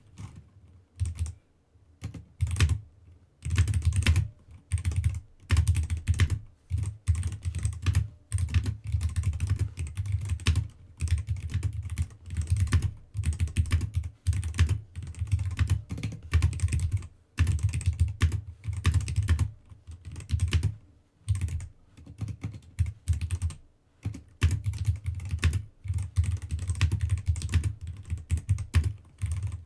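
Typing on a new computer keyboard during a typing test: fast runs of keystrokes broken by short pauses every second or two.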